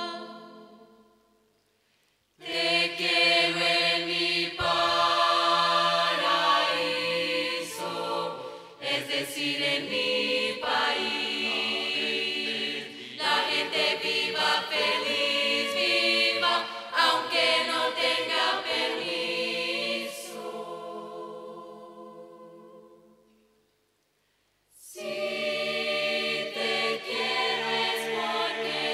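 Mixed-voice choir of a Portuguese academic tuna singing held chords without clear words, in phrases. It breaks off briefly near the start, comes back in, fades away around twenty seconds in, and starts again after a short silence.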